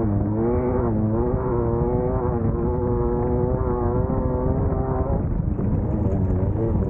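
Class 1600 off-road race car's air-cooled VW 1600 engine running hard, its revs rising and falling, over a constant low rumble. Near the end the engine note blurs into rough noise with a few sharp knocks.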